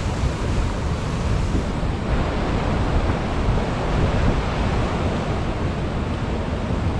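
Fast-flowing river water rushing over rocks and rapids below a dam's spillway, a steady loud rush.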